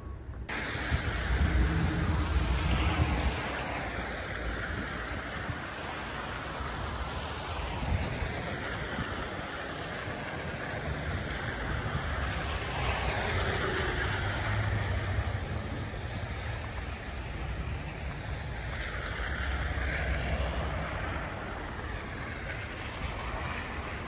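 City traffic passing on a snowy street: the hiss of several vehicles' tyres swelling and fading as each goes by, with low engine rumble, the loudest pass about two seconds in. Wind is on the microphone.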